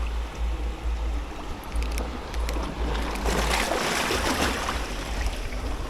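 Sea waves washing over shoreline rocks, swelling about halfway through, with wind rumbling on the microphone.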